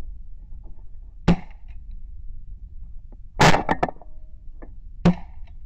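Three shotgun shots about two seconds apart, the middle one the loudest and followed by a few quick smaller clicks.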